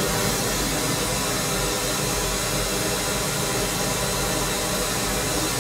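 Pink noise test signal played through a single studio monitor (the right speaker of monitor pair A), a steady even hiss with nothing else over it. It is the level-calibration signal, measuring at about 75 dB SPL at the listening position.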